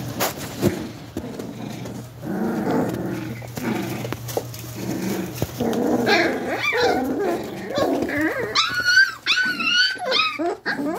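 Young English Springer Spaniel puppies growling as they play-fight, then letting out a string of high-pitched yelps and whines in the last few seconds.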